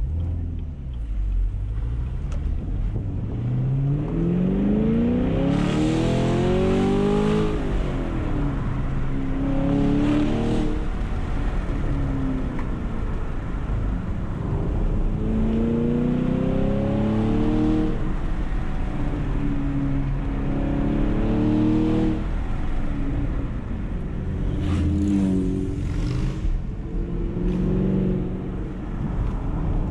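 Car engine pulling hard up through the revs and easing off again, about six times in a row, as the car is driven fast along a winding road; steady road and tyre noise runs underneath.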